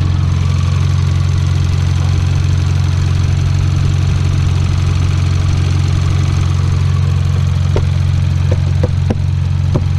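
2018 Hyundai Elantra Sport's 1.6-litre turbocharged four-cylinder idling steadily, heard at close range in the open engine bay, running on newly fitted HKS iridium spark plugs. Near the end come a few sharp clicks as the plastic engine cover is pressed down onto its mounting inserts.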